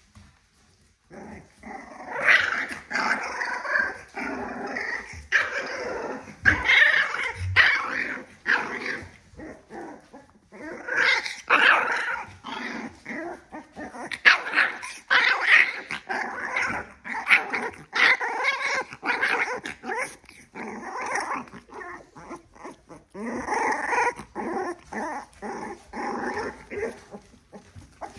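Young puppies, about three weeks old, growling and yipping in rough play, starting about a second in with short lulls along the way.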